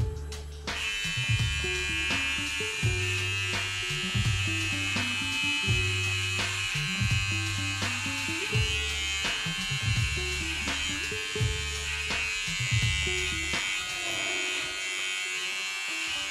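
Electric hair clippers buzzing steadily as they shave the side of a head, switched on about a second in. Background music with a repeating bass line plays underneath, and the bass drops out near the end.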